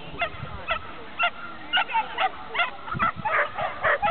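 Shetland sheepdog barking repeatedly while running, short sharp barks about two a second.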